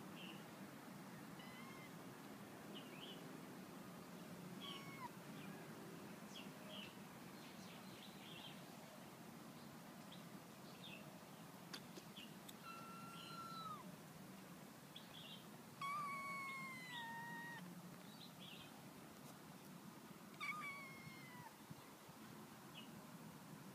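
Kittens mewing: many short, high squeaks throughout, with three longer meows that fall in pitch, about halfway through, two-thirds in, and near the end.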